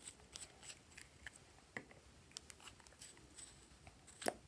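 Soft clay-like slime squeezed and kneaded in the fingers, giving faint sticky clicks and crackles, with a louder click near the end.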